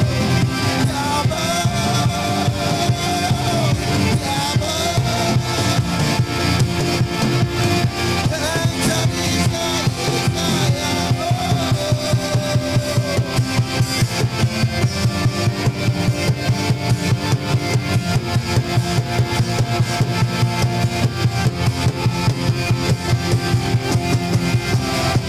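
Live worship band music led by drum kit and keyboards, with a gliding lead melody over it in the first half. About halfway in, the drums settle into a steady, quick beat.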